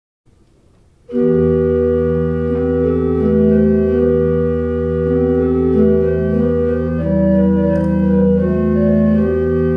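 Organ music starting about a second in: slow, held chords that change every second or so over a sustained low bass note.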